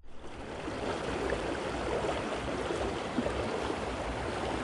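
Steady rush of a fast, shallow creek flowing over rocks.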